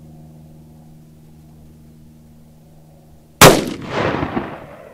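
A single .357 Magnum shot from a Smith & Wesson Model 13 revolver with a 4-inch barrel, about three and a half seconds in, followed by an echo that rolls on and dies away over about a second and a half.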